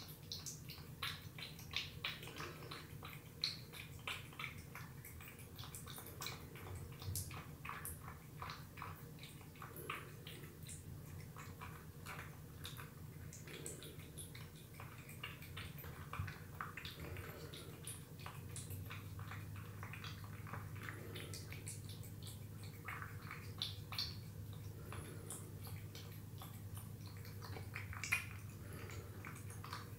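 Cat lapping and chewing watery wet cat food: a string of irregular wet clicks and smacks over a steady low hum.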